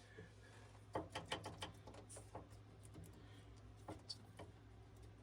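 Faint clicks and light knocks, a cluster about a second in and a few more near the end, over a low steady hum: hands working at the skid steer's chain case, checking the axle bearings for play.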